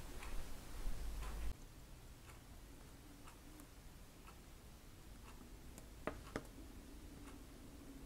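Faint, irregular light ticks of a small paintbrush tapping and dabbing on a canvas as a thin leg is painted.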